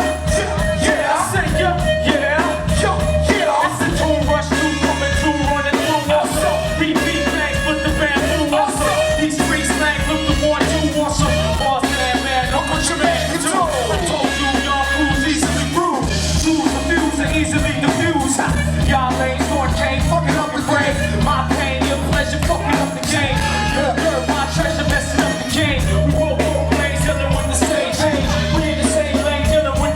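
Loud dance music with a heavy, steady bass beat.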